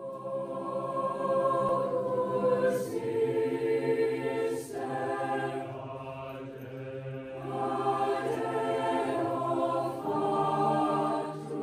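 A choir singing slow, sustained chant as intro music, in long held phrases with brief breaks between them, over a steady low note.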